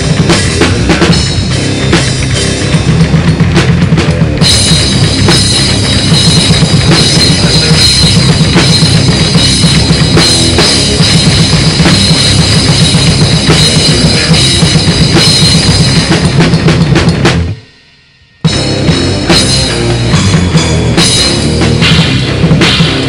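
Rock song from a band's rehearsal recording, driven by a drum kit with bass drum and snare. The music cuts out for about a second near the end, then comes back in.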